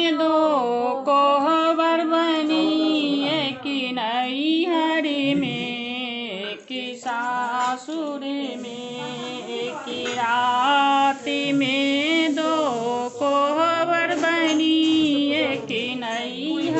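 A woman singing a melody, holding long notes that waver in pitch, with short breaks between phrases.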